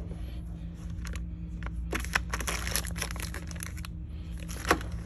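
Crinkling of small plastic zip-lock parts bags being handled and picked up: a run of crackles about two seconds in, and one sharper crackle near the end.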